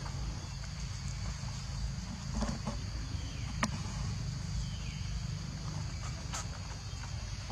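Steady high chirring of insects, with a low rumble underneath and a few sharp clicks, the clearest about three and a half seconds in and another about six and a half seconds in.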